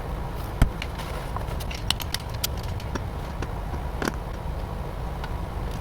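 Scattered knocks and clicks of someone climbing a ladder onto an RV roof, the loudest knock about half a second in, over a steady low rumble of wind on the microphone.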